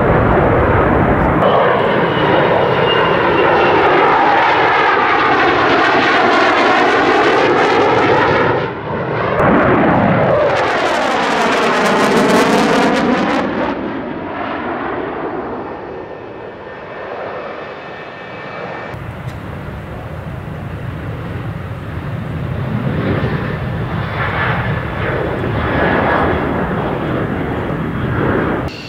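Military jet engines, an F-4 Phantom among them, passing low in several cut-together flybys. Each pass is loud, with a pitch that slides down as the aircraft goes by, and the sound changes abruptly at the cuts.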